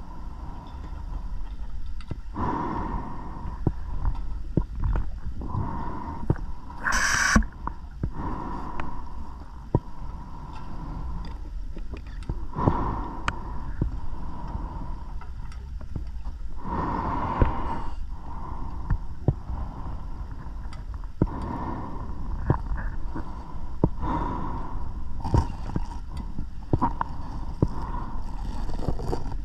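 Scuba diver's breathing heard underwater through the camera housing: hissing breaths swelling every few seconds and bubbling gurgles, with scattered small clicks and two louder bubbling rushes, about a quarter of the way in and just past halfway.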